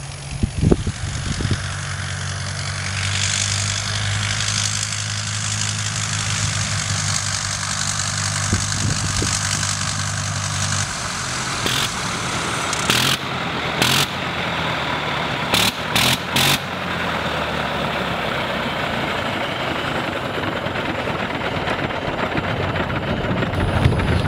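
Sopwith Snipe's castor-oil-lubricated rotary engine running at low power as the biplane taxis on grass, with a steady low note for the first ten seconds or so. Several sharp clicks come over it a little past halfway.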